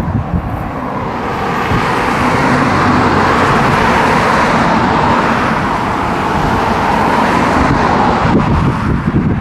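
Road traffic: tyre and engine noise of passing vehicles, a steady rush that swells over a few seconds and eases off near the end.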